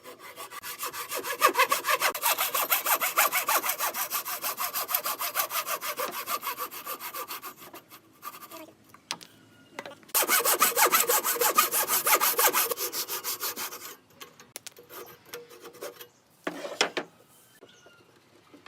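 Hand saw cutting through wood with quick, even strokes, about five a second. There are two runs of sawing with a pause between them, then a short scrape near the end.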